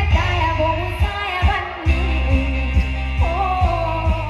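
A woman singing live karaoke into a handheld microphone over a backing track, both played loud through an outdoor PA system with BV 18-inch bass cabinets. The backing has a heavy bass beat of about two thumps a second.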